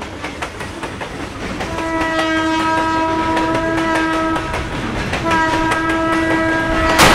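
A train running along the track with its wheels clicking steadily over the rails while its horn sounds two long blasts, the first about two seconds in and the second starting about five seconds in. A sudden loud bang comes near the end.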